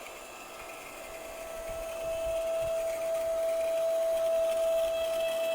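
7-ton hydraulic log splitter running with a steady hum while the lever is held down to drive the ram through a log; the sound grows louder about two seconds in as the pump works against the log.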